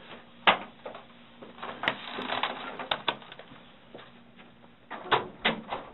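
A few sharp knocks and clicks with rustling in between, from people moving about: an office chair shifting as someone gets up from it, and papers and objects being handled.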